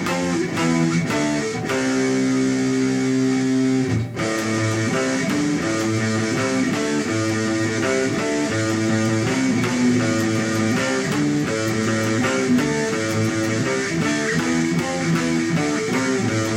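Guitar playing a rock riff in power chords. One chord rings for about four seconds, then a steady rhythmic pattern of strummed chords moves between positions.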